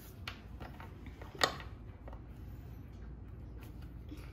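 A few faint clicks and one sharp click about a second and a half in: a small kitchen knife cutting a hard beef bouillon cube against the countertop.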